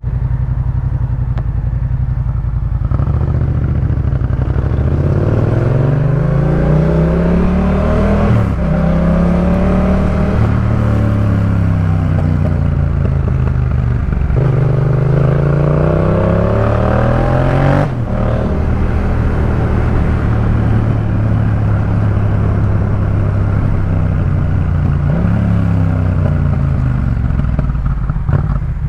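Yamaha MT-07's parallel-twin engine through a Jeskap K4 full aftermarket exhaust, running and revving. The pitch climbs over several seconds and drops sharply, twice, with steadier running between and a smaller rise near the end.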